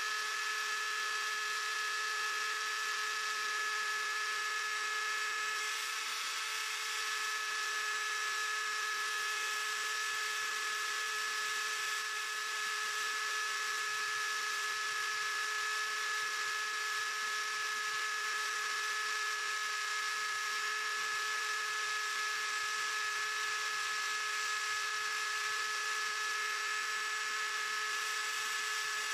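Small CNC machine running, its motor giving a steady, unchanging whine over a whirring hiss.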